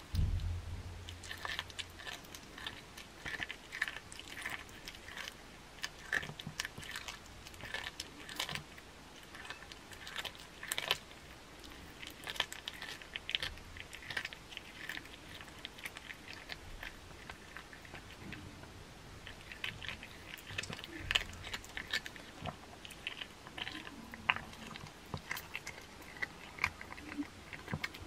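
A cat chewing and crunching a raw chicken head close up: a continuous run of irregular, wet crunches and clicks of teeth on bone and gristle.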